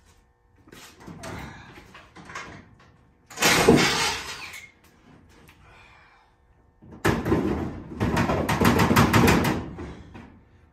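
Sheet-metal body panel of a dirt late model race car being pulled and bent off the chassis by hand, rattling and banging. A short loud burst comes about three seconds in, and a longer one runs from about seven to ten seconds.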